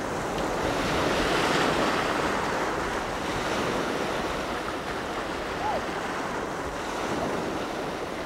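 Small waves washing onto a rocky shore: a steady rush of surf that swells about a second in.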